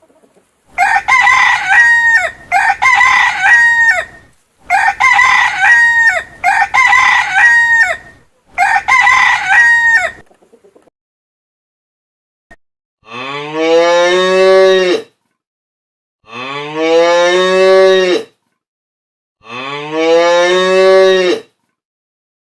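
A rooster crowing five times in quick succession, then, after a pause, a cow mooing three times, each moo about two seconds long and rising in pitch at its start.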